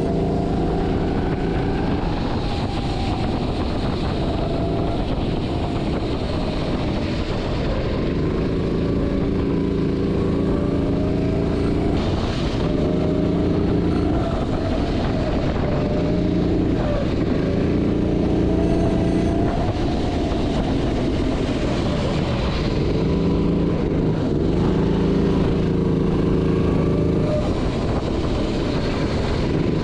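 Go-kart engine run hard, its note holding steady on the straights and dropping, then climbing again through each of several corners. A steady rush of tyre noise on the wet track runs beneath it.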